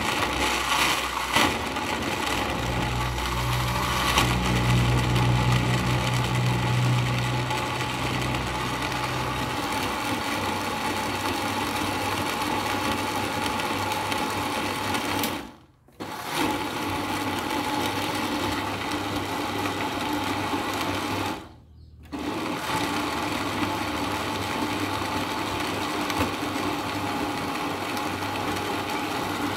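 Electric countertop blender running steadily as it blends a liquid mixture, with a deeper hum in its first several seconds. The motor stops twice briefly, about halfway through and again a few seconds later, then starts up again each time.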